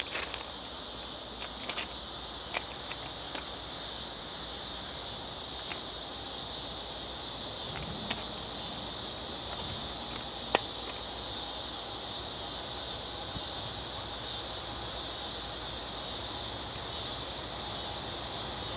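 A steady chorus of insects chirring in high pitch, with a single sharp click about halfway through.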